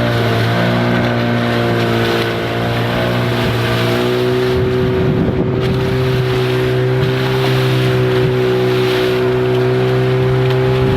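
Boat engine running steadily at a constant pitch, with a hiss of wind and water behind it.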